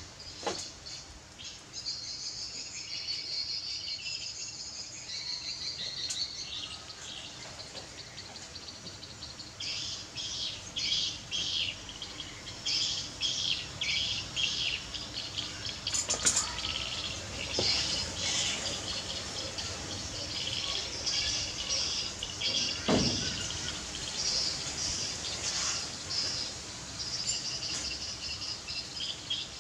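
Small birds chirping and calling, in quick runs of short high notes that come again and again.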